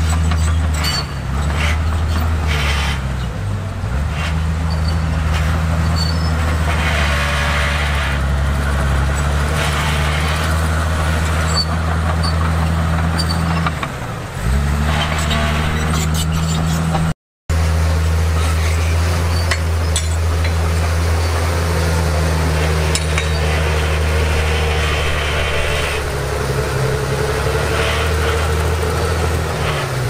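Bulldozer's diesel engine running hard and steady, its pitch sagging briefly three times as it takes load, with bursts of rougher scraping noise on top. The sound cuts out for a moment a little past halfway.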